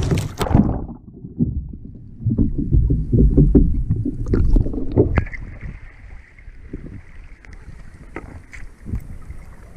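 Water splashing and sloshing around a kayak in uneven bursts, with knocks, loudest at the start and again in the first half, then quieter.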